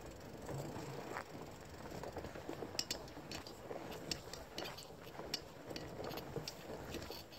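Mountain bike rolling fast down a dirt singletrack: a steady rush of tyres on the ground, broken by irregular clicks and clinks as the bike's parts rattle over bumps.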